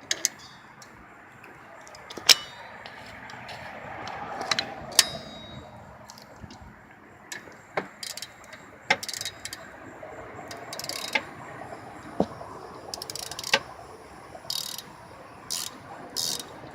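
Ratchet wrench clicking in short strokes, with scattered metallic clicks and knocks, as the rear brake caliper bolt is worked loose while vice grips hold its spinning nut. Near the end the ratchet strokes come about once a second.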